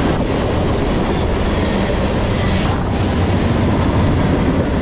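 Freight train cars, mostly loaded tank cars, rolling past: a loud, steady rumble of steel wheels on the rails.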